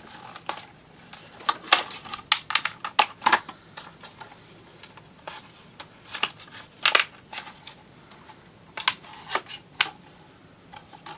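Irregular sharp plastic clicks and short rustles of a folding camera drone being handled and its arms folded back up.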